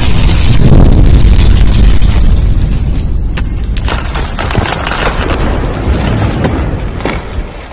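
A loud explosion-like boom sound effect, a deep rumbling roar that slowly fades over several seconds. Scattered sharp crackles are heard as it dies away.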